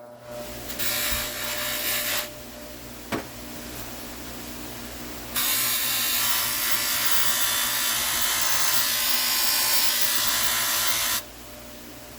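An electric polisher running with a steady hum while a metal trim piece is pressed against its buffing wheel, giving a loud rubbing rush twice: briefly about a second in, then for about six seconds from the middle. A single knock comes about three seconds in.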